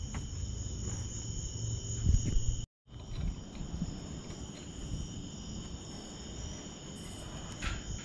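A steady chorus of crickets trilling, with a few low thumps about two seconds in; the sound drops out completely for a moment just before the three-second mark.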